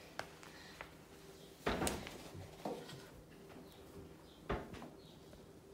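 A few scattered light knocks and clicks of kitchen utensils being handled as a balloon whisk is picked up for mixing batter, the loudest about two seconds in and a sharp one near the end.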